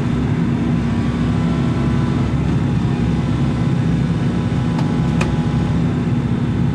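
Excavator diesel engine running steadily under load while the machine pries a concrete slab loose, heard from the cab, with two faint sharp clicks about five seconds in.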